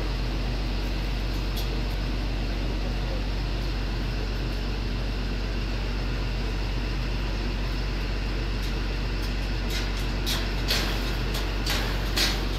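A large engine running steadily with a constant low hum. Several short, sharp noises come in the last few seconds.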